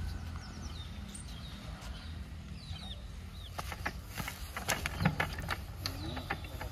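Lister-type single-cylinder diesel engine being spun over by a rope pulled round its flywheel pulley: a run of knocks and clicks from about three and a half to five seconds in, without the engine catching. Birds chirp over a steady low rumble.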